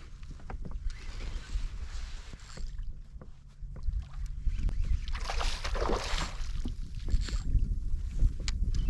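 Water lapping and sloshing against a plastic kayak hull, with small knocks and a low wind rumble on the microphone. About five seconds in there is a louder rushing swell lasting a second or so.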